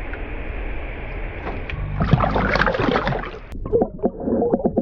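Lake water sloshing and splashing around the camera. About three and a half seconds in the sound suddenly turns muffled as the camera goes underwater, giving way to rapid underwater bubbling and clicking.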